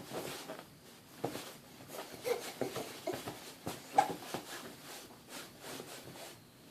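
A three-month-old baby hiccupping, a quick string of short, sharp catches with small throaty noises between them. The loudest comes about four seconds in.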